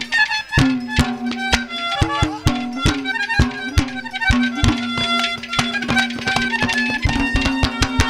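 Instrumental interlude of live Haryanvi ragni accompaniment: a held reed melody over fast, steady hand-drum strikes.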